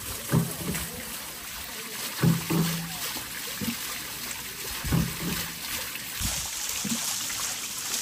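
Water splashing and pouring off a turning wooden water wheel into a stone channel. A low knock recurs about every two and a half seconds.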